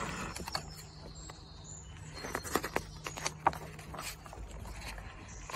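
A large hardback picture book being handled and a page turned: soft paper rustling with scattered light taps and clicks.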